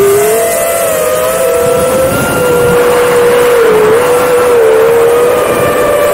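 TBS Oblivion FPV quadcopter's brushless motors and propellers buzzing close to the onboard camera's microphone, a steady whine whose pitch dips and rises slightly with throttle changes.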